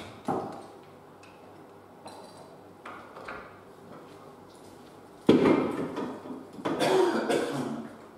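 Hinge jig and tools being handled and set down: a few small knocks, then two loud clattering rattles about five and seven seconds in.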